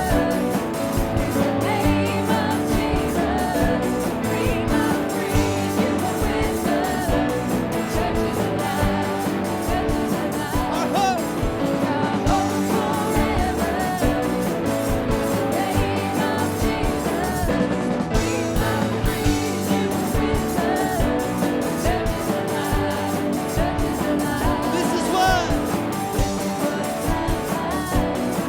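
Worship band music with singing over guitar and drums.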